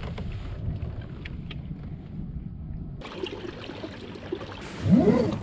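Wind rumbling on the microphone, then from about three seconds in water trickling and splashing along the hull of a moving kayak, with a few small ticks. Near the end comes a brief loud rising sound.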